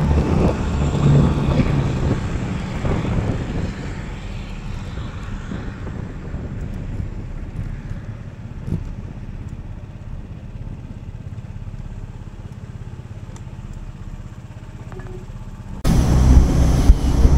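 Motorcycle engine running as the bike rides, then easing off and quietening as it slows onto a gravel lot. About 16 seconds in the sound cuts abruptly to louder rumble and knocks of the camera being handled.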